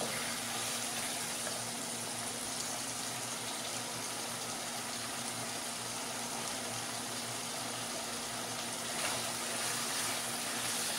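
Green-masala mutton liver sizzling steadily in a non-stick wok over a gas flame. It has cooked through after simmering covered. A wooden spatula stirs it again near the end.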